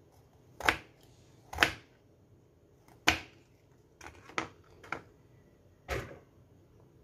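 Kitchen knife chopping a peeled patola (sponge gourd) into chunks on a plastic cutting board. About six sharp chops at uneven intervals, each one the blade going through the soft gourd and striking the board.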